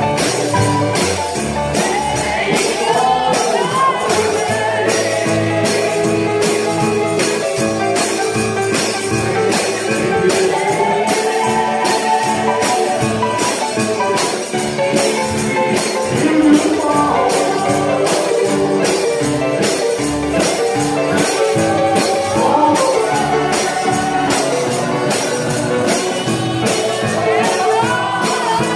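Live gospel music: voices singing over instruments, with a tambourine keeping a steady beat.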